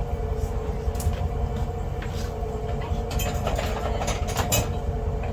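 Boat motor running steadily with a low rumble and a steady hum, with a few sharp clicks and rattles about three seconds in.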